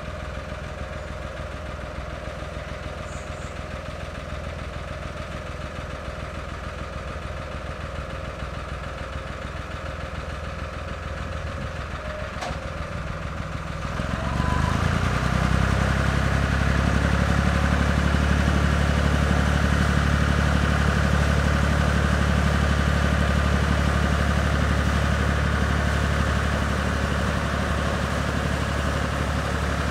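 Narrowboat's inboard diesel engine chugging steadily. It grows much louder about halfway through as the boat draws close, with the rush of its propeller wash churning the water.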